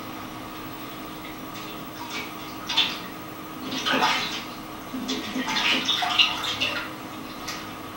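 Hands washing in water in tin buckets: irregular splashing and sloshing, busiest through the middle of the stretch, over a steady faint hum.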